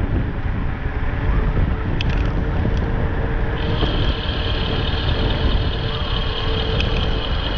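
Wind buffeting the microphone on a moving electric bike, with a low rumble of road and tyre noise. About halfway through, a steady high whine comes in and holds.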